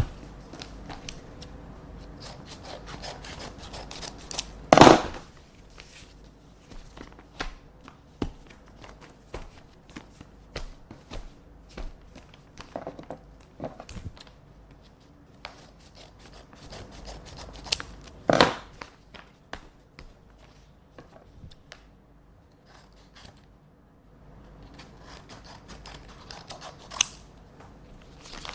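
Scissors snipping open paper envelopes, a run of short crisp cuts amid paper handling and rustling. Two louder paper sounds come about five seconds in and again about eighteen seconds in.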